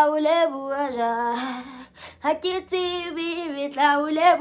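A woman singing two sung phrases with long held notes and a short break about two seconds in.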